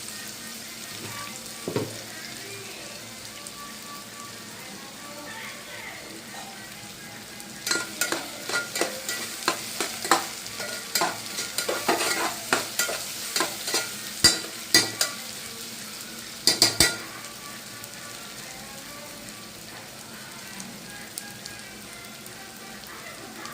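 Food sizzling steadily in hot oil in a cooking pan while it is stirred. A run of sharp clicks and scrapes of the spoon against the pan comes from about eight seconds in to about seventeen seconds in.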